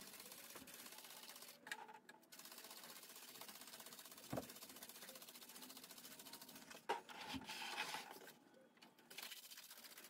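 Hand trigger spray bottle being squeezed several times, misting diluted coil cleaner onto an air-conditioner coil: faint trigger clicks and short hissing sprays, the clearest spray about three-quarters of the way through.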